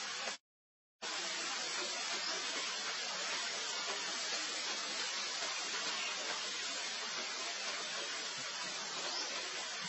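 Steady hiss of background noise, which drops out to complete silence for about half a second near the start.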